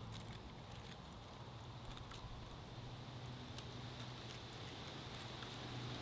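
Faint crackling of feather sticks catching alight, a few scattered small snaps and ticks, over a faint steady low hum.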